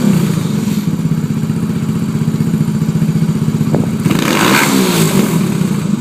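Husaberg single-cylinder four-stroke engine in a Formula Student car idling with an even, lumpy beat; about four seconds in it is briefly revved and the revs then fall back to idle.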